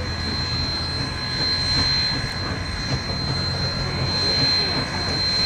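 Sierra Railway No. 3, a 4-6-0 steam locomotive, getting under way with its train: a steady rush of steam and running-gear noise without distinct exhaust beats.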